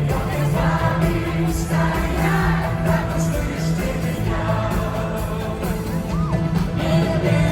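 Live pop concert music: the band playing with singing over it.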